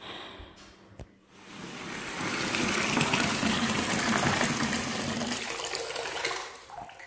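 Water from a chrome bath tap pouring into a bathtub to fill it. After a click about a second in, the flow builds to a steady loud rush, then dies away near the end.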